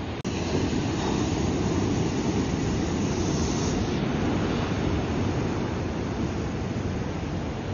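Ocean surf washing onto a rocky shore, a steady rush of noise that comes in louder after a brief dropout about a quarter-second in.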